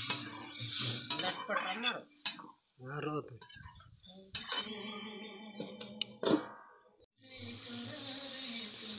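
Metal ladle knocking and scraping against a large aluminium kadai as chicken curry is stirred, with scattered sharp clinks. After about seven seconds the stirring stops and a steady hiss of the simmering curry takes over.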